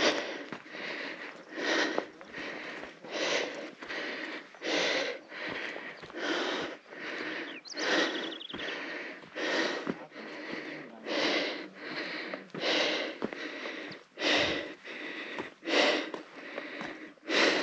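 A person breathing hard from exertion, loud breaths coming about every one and a half seconds, while carrying a heavy sack of rice along a mountain path.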